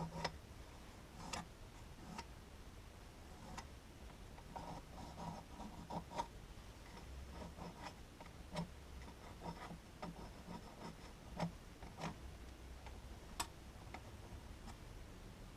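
Hand tools clicking and scraping against the EGR blanking plug being made: faint, irregular sharp clicks and light rubbing, a few of them louder, with no steady rhythm.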